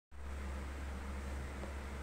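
Room tone: a steady low hum under a faint hiss, with no distinct event.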